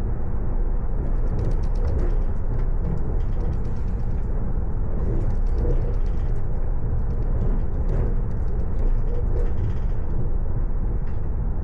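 A train running, heard as a steady low rumble with faint, irregular high ticking and rattling on and off.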